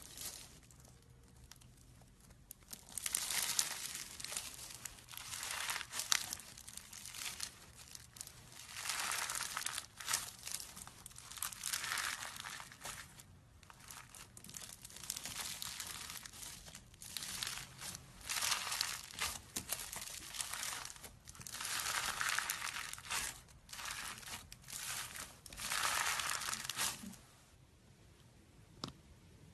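Slime being squeezed and stretched by hand, making a string of noisy bursts a second or two long that stop a couple of seconds before the end.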